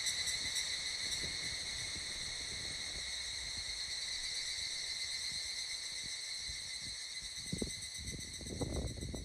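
Insects shrilling steadily: a high, continuous drone with a fine rapid pulse. A few low thuds and rumbles come in near the end.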